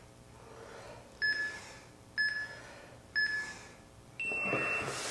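Electronic interval-timer countdown: three short beeps one second apart, then one longer, higher-pitched beep marking the end of the work interval and the start of the rest.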